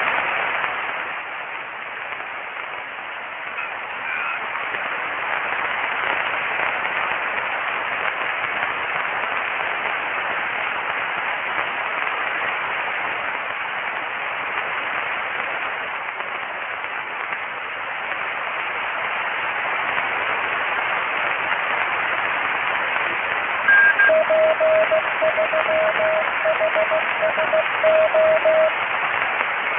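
Static hiss from the HamSphere 5 virtual ham-radio receiver app on an iPhone as it is tuned across the bands. Near the end, a single steady pitched tone comes in, keyed on and off in short and long beeps like Morse code, louder than the hiss.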